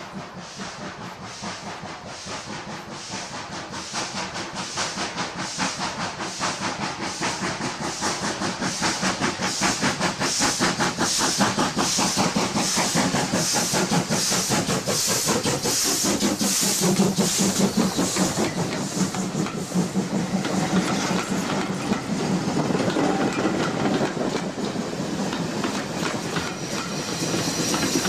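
Steam locomotive City of Truro, a GWR 4-4-0, working a passenger train toward the listener under steam, its exhaust beating in a steady rhythm with a hiss of steam. It grows louder over the first ten seconds or so, and near the end the wheels and coaches clatter past close by.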